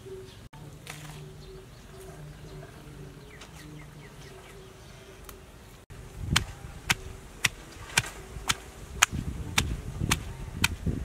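A stone mortar and pestle pounding sliced lemongrass, galangal and garlic for a curry paste, with sharp strikes about two a second, each with a dull thud. It starts about six seconds in; before that there is only faint background.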